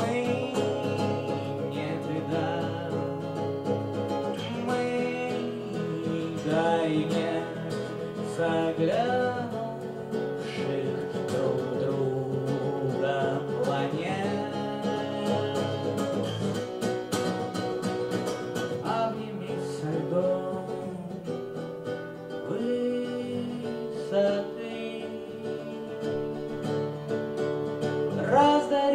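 Live acoustic guitar playing an instrumental passage of a song, carrying a melody over a steady accompaniment with no sung words.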